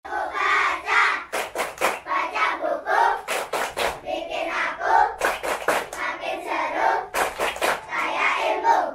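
A group of young children chanting an Indonesian 'tepuk' clap rhyme in unison, with quick runs of sharp hand claps between the chanted lines, about four times.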